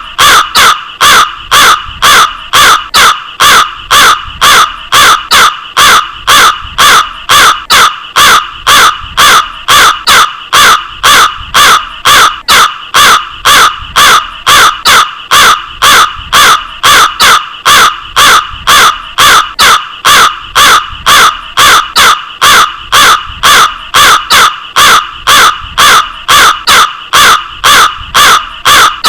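Crow cawing over and over: short, harsh caws repeating about twice a second in an unbroken, even rhythm.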